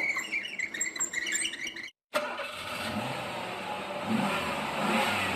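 Car engine running, its low pitch rising and falling a little, with a brief silent break about two seconds in.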